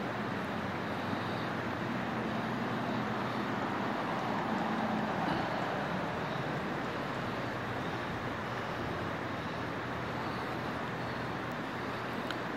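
Steady rush of a river flowing over a stony bed, swelling slightly a few seconds in.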